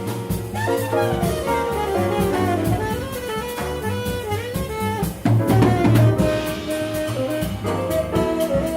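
Small jazz group playing live: a tenor saxophone runs fast, bending lines over drum kit with ride cymbal, a walking double bass and piano. A brief burst of louder drum hits comes about five seconds in.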